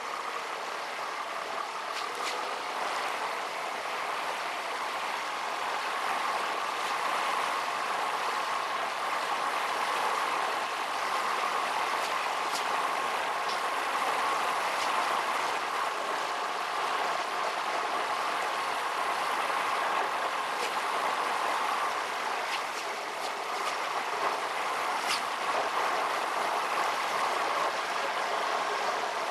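Steady road and engine noise inside a moving car's cabin, sped up along with the footage, with a few faint ticks.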